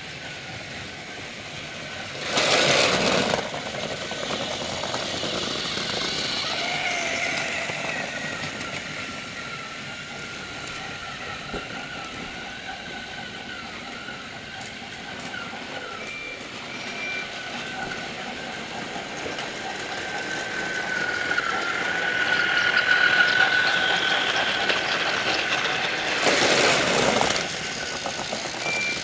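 Small electric motor of a battery-powered Trackmaster toy train whining steadily as it runs along plastic track, getting louder past the middle. Two loud hissing rushes of about a second each, one near the start and one near the end.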